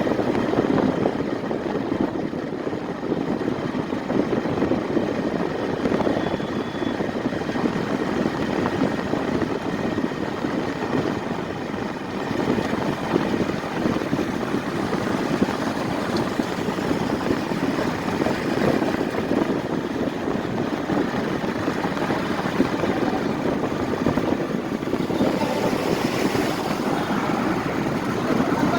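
A vehicle running, a steady low rumble of engine and road noise.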